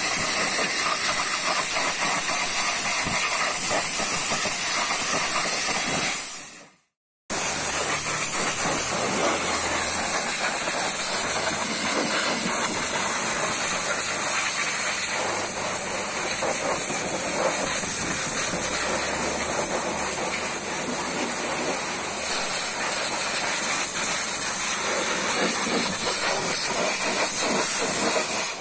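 Pressure-washer lance spraying a hard jet of water on a tyre and wheel, then into a car's engine bay: a steady hiss. It cuts out for about a second around seven seconds in.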